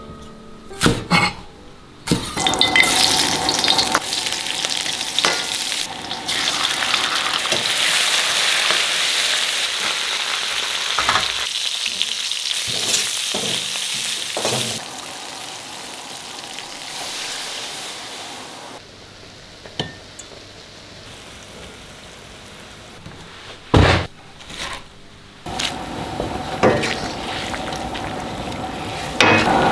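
A few cleaver chops on a wooden board, then eel pieces and scallions sizzling loudly as they are stir-fried in an iron wok with a ladle, the sizzle dying down after a while. Near the end, broth bubbles in the wok as the ladle stirs noodles and greens.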